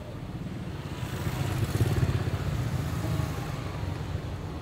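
An engine running close by with a fast low pulsing, swelling to its loudest about two seconds in and then holding steady.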